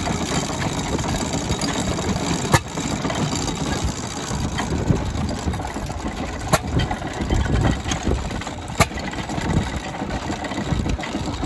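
Vintage hay baler's 6 horsepower stationary engine running, with a steady low rumble and a sharp knock every two to four seconds from the engine or the baler's working mechanism.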